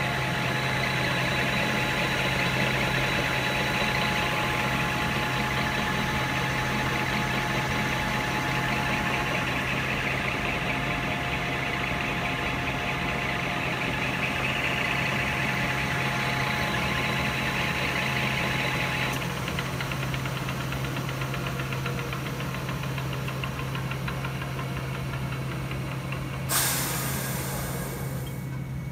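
Dainichi DLG-SHB engine lathe's headstock gearbox and spindle running steadily at 800 rpm: a steady hum with a high gear whine that drops away about two-thirds of the way through. Near the end there is a short sharp noise as the headstock controls are worked, and the running gets quieter.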